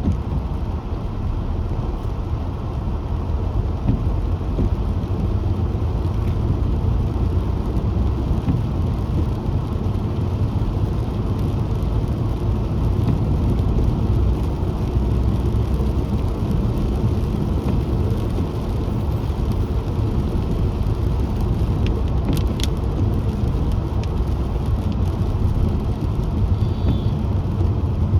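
Car driving along a city road: a steady low rumble of engine and tyre noise, with a few brief clicks about two-thirds of the way through.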